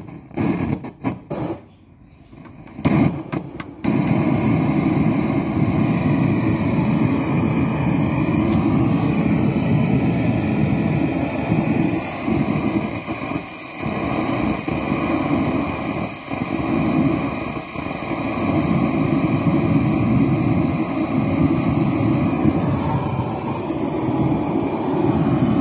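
Low, rumbling sound from a speaker driven by a 4-channel car audio amplifier's channel set to low-pass filter. It cuts out several times in the first few seconds, then plays on steadily with brief dips, which the technician takes for a faulty potentiometer.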